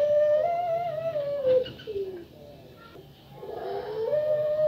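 Female puter pelung, a long-voiced Barbary dove, cooing: one long drawn-out coo held steady that drops in pitch at its end, then after a short pause a second long coo rises and holds.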